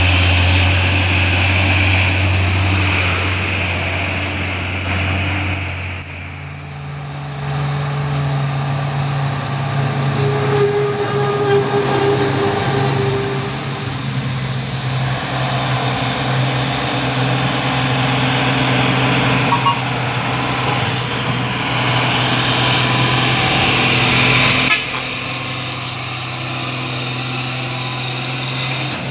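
Heavy diesel truck engines labouring up a steep climb as loaded trucks pass one after another: a steady deep drone that steps up in pitch about seven seconds in.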